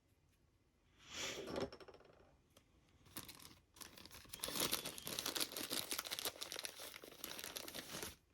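Bag of modelling flock being handled and crinkled: a short crinkling burst about a second in, then a longer run of dense crinkling from about three seconds in that stops just before the end.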